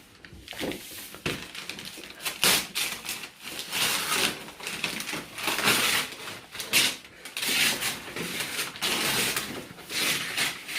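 Gift packaging being handled and unwrapped: paper and wrapping rustling and crinkling in irregular bursts.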